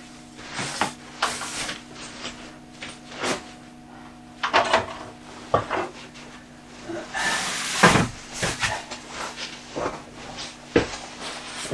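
Irregular knocks, thuds and rustles of camping gear in stuff sacks being handled and set onto wooden shelves, with a longer scraping rustle about seven to eight seconds in.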